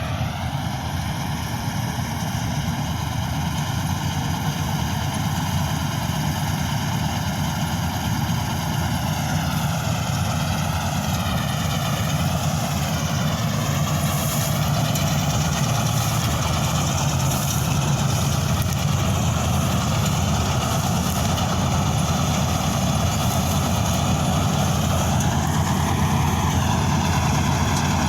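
Old Preet combine harvester's engine running steadily, with a whine on top that dips and rises in pitch a few times midway and again near the end.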